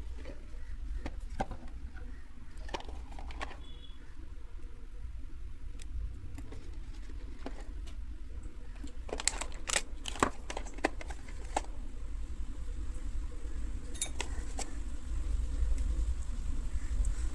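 Unboxing handling noises: scattered clicks and taps as the packaging and adapter parts are handled, thickest around the middle and again about two-thirds of the way in, over a low steady hum.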